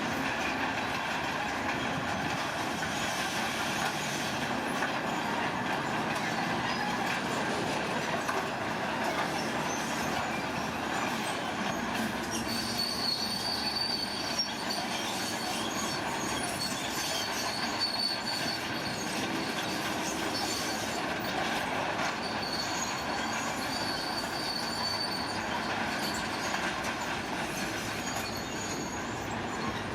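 Heavy earthmoving machinery working: a steady mechanical noise, with a high metallic squeal that comes and goes from about halfway through.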